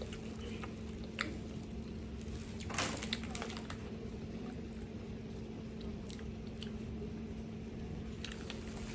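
Crunchy spicy crackers being bitten and chewed, with a few sharp crunches, the loudest about a second in and around three seconds in.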